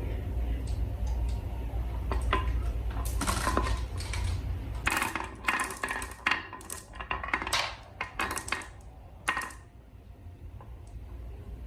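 Marbles running down a wooden HABA marble run: a rapid, irregular clatter of clicks and clacks as they hit the track pieces and each other, over a low rolling rumble, thinning out near the end.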